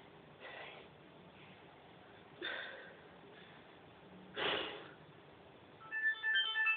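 A man breathing hard while resting after exercise: three short, audible breaths about two seconds apart. Near the end a quick run of high tones.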